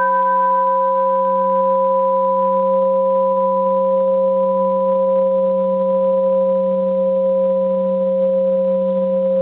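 Bronze Japanese Buddhist temple bell ringing on from a single plastic-hammer strike: a long, steady hum of several pitches that barely fades, its highest overtone dying away within the first couple of seconds.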